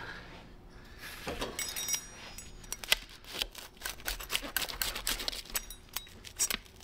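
A baked calzone being cut through: a dense, irregular run of crackling crunches and scrapes of the crust against the blade and board, starting about a second and a half in.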